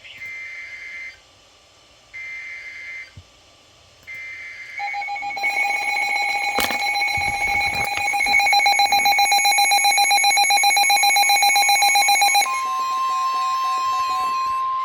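Emergency Alert System broadcast tones from NOAA Weather Radio. First come three short bursts of SAME header data, the digital code that opens an alert. About five seconds in, a loud, rapidly pulsing alarm beep starts and runs for about eight seconds. Near the end it switches to the steady single-pitch warning alarm tone that announces a new warning.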